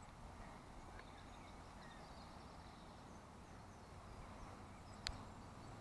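Quiet lakeside outdoor ambience: a faint low rumble of wind with a few faint bird chirps, and a single sharp click about five seconds in.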